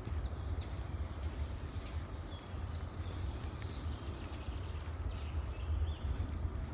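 Songbirds singing in a dawn chorus, many short high whistles and trills from several birds, over a steady low rumble.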